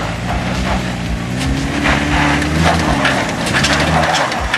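Single-cab 4WD ute engine working hard under load as it climbs a steep, rough track, its pitch rising through the middle and dropping away about four seconds in. Tyres crunch and crackle over rock and gravel throughout.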